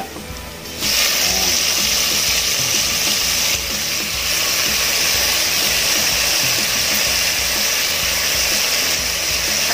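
Hot oil sizzling hard as boiled, wet jackfruit goes into a pan of sautéed onion and garlic; the steady frying hiss starts about a second in.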